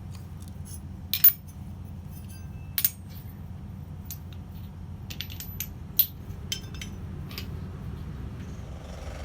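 Pieces of scrap steel clinking and knocking together as they are handled in a pile, a few separate sharp clinks over a steady low hum.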